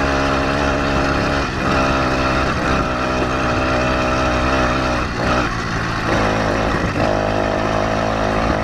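Motorized bicycle's small two-stroke kit engine running under way, its note rising and falling a little with the throttle, with short dips about one and a half, five and seven seconds in.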